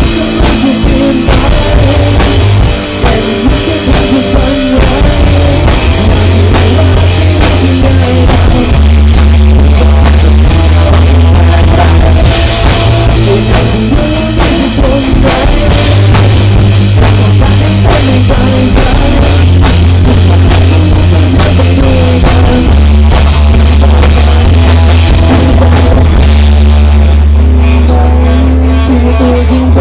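A rock band playing with drum kit, guitar and bass guitar, with heavy bass and steady drum beats. About three seconds before the end, the drums and cymbals drop out, leaving guitar and bass ringing.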